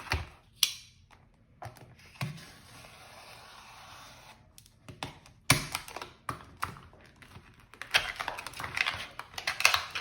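Retail packaging of a pair of pliers being opened by hand: scattered clicks and knocks, a steady rustle for about two seconds, a sharp knock midway, and a run of crackling clicks near the end.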